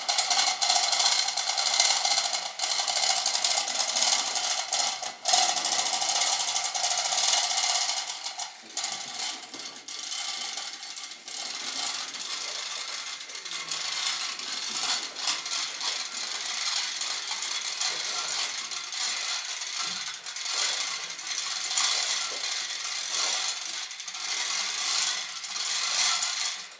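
Manual chain hoist being hauled by its hand chain: steel chain rattling through the hoist and its ratchet pawl clicking continuously under the load of a heavy blast door. Louder for the first eight seconds or so, then quieter.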